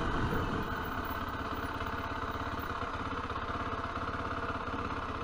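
Zontes T310 motorcycle's single-cylinder engine running steadily at low revs, with an even pulse and no change in pitch.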